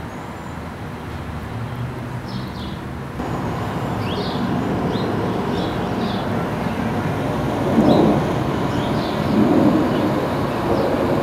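Steady street traffic noise with cars passing, swelling twice in the second half. Short, high bird chirps sound over it now and then.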